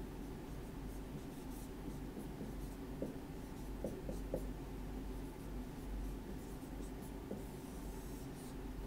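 Dry-erase marker writing on a whiteboard: faint scratchy strokes and a few light taps as the marker meets the board, over a steady low hum.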